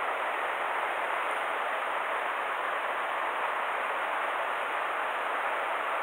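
Steady, even rush of a rocky mountain river flowing over stones and shallow riffles.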